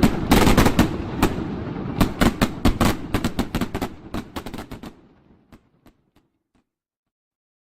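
Fireworks going off in a rapid run of sharp bangs and crackles that thins out about five seconds in and stops after a last few scattered pops.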